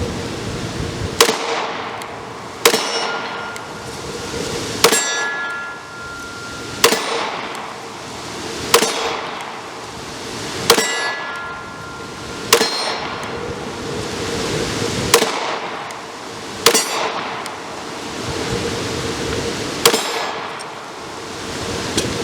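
Glock 43 9mm pistol fired slowly, ten shots spaced about one and a half to three seconds apart. Each shot is followed by the ringing clang of a steel target being hit. Steady wind noise on the microphone runs between the shots.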